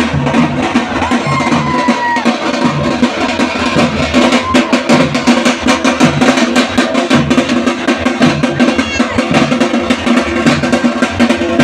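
Loud, fast drumming with music, the rhythmic beat that accompanies a tiger dance.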